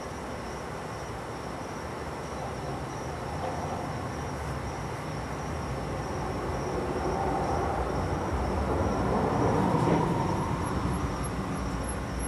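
Rumble of a passing vehicle, building slowly to its loudest about ten seconds in and then easing off, with a steady faint high whine throughout.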